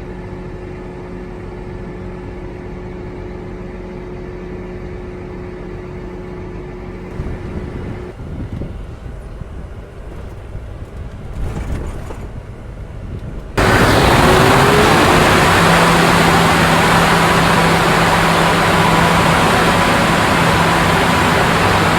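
Heavy farm machinery engines running at a wheat silage harvest: a steady hum for the first several seconds, rougher and uneven in the middle, then about two-thirds of the way in a sudden jump to a much louder rushing machine noise over a steady drone.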